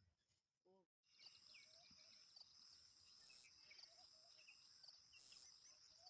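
Faint rural ambience: a steady high-pitched insect drone with scattered small bird chirps, starting about a second in.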